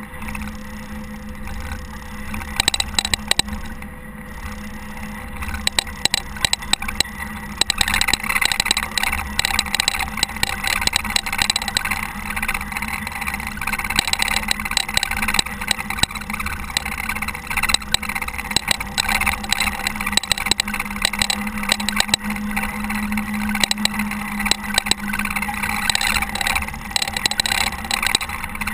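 Caterpillar TH330B telehandler's diesel engine running steadily while plowing snow, with many sharp clicks and rattles throughout. A broad rushing hiss comes up about eight seconds in and stays.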